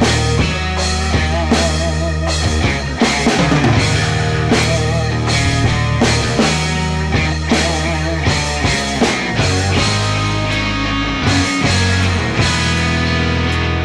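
Background rock music with a drum kit keeping a steady beat over held bass notes.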